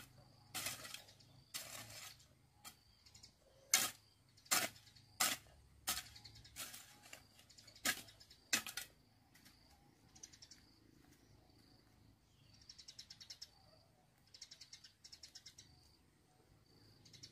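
About ten sharp knocks, spaced irregularly over the first nine seconds. After that only faint, rapid, high chirping trills come and go.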